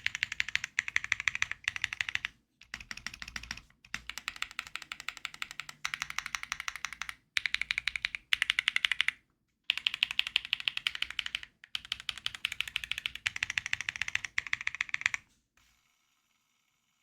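Fast typing on a Keysme Lunar 01 mechanical keyboard with Gateron Weightlessness switches: quick keystrokes in runs of one to two seconds, with short pauses between runs. The typing stops about a second and a half before the end.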